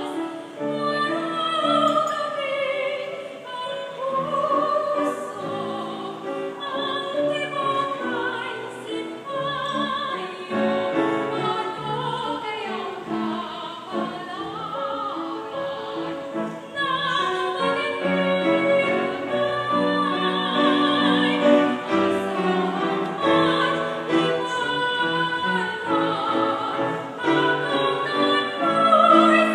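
Live operatic-style singing: a soprano leads with wide vibrato, joined by male voices, over piano accompaniment.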